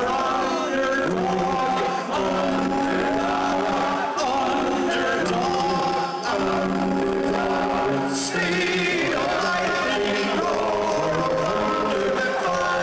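Male a cappella quartet singing live in close harmony, several voices holding chords together in short phrases.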